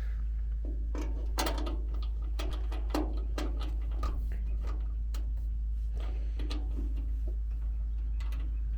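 Scattered light clicks and knocks of hands handling a PC case and its parts, over a steady low hum.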